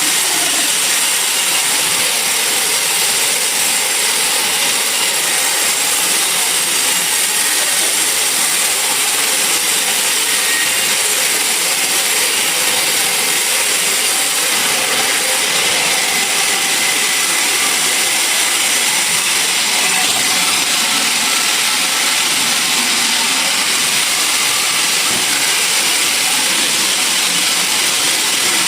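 Sawmill saw running steadily through a log, an even, loud hiss of cutting with no pauses.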